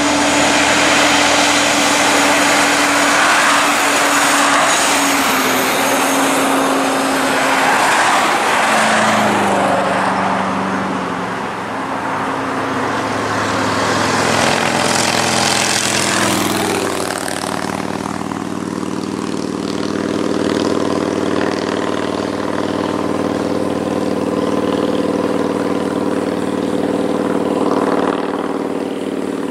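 Highway traffic passing close by, each vehicle's engine pitch dropping as it goes past, and a motorcycle rushing past about halfway through. After that comes the steady low drone of heavy Kenworth prime movers' diesel engines hauling an oversize excavator load slowly uphill.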